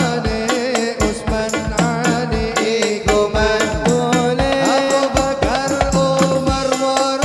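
A man singing an Arabic sholawat melody with ornamented, wavering lines into a microphone, accompanied by hadroh hand drums with darbuka playing a quick, steady beat. A long note is held from about four seconds in.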